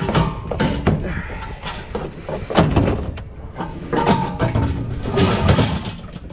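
Irregular clanks and knocks of a metal fire pit being handled and loaded, some with a short metallic ring.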